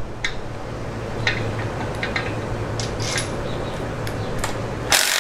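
Cordless power ratchet running steadily as it backs out a camshaft bearing-cap bolt, with a few light metal clicks and a sharper metallic clatter near the end.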